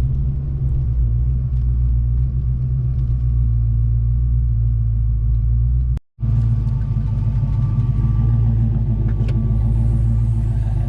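Steady low rumble of a motor vehicle running, with an even engine hum under it. It breaks off for a moment about six seconds in, then carries on the same.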